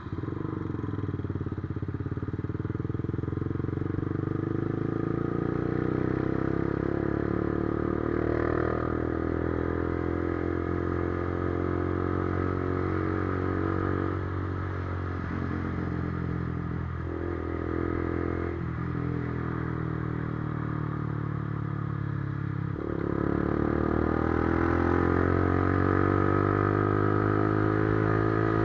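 Motorcycle engine pulling through the gears: its pitch climbs steadily and drops sharply at each upshift, three times in the second half.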